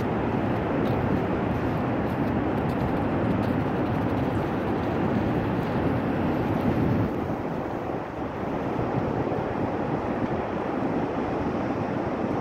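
Steady wind blowing over the phone's microphone, a continuous rushing noise that eases slightly about two-thirds of the way through.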